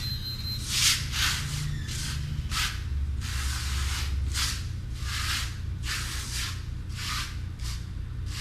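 Scraping strokes of a hand tool spreading a sand-filled coat of RedGard waterproofing membrane over fiberglass cloth, about one stroke a second, over a steady low hum.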